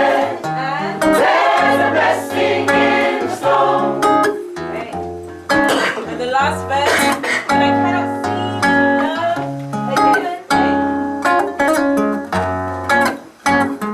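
Gospel choir singing with live band accompaniment: a stepping bass line and frequent sharp percussion hits under the voices.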